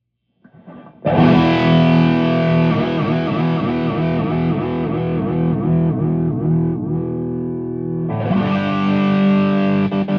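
Warmoth superstrat electric guitar played with distortion: a chord is struck about a second in and held, its pitch wavering up and down in a steady wobble, then a second chord rings out near the end and fast repeated picking begins.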